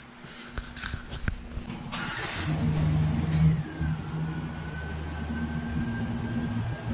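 A few clicks and handling noises, then a machine motor starts about two and a half seconds in and runs with a steady low hum and a thin high whine that drops slightly and holds steady.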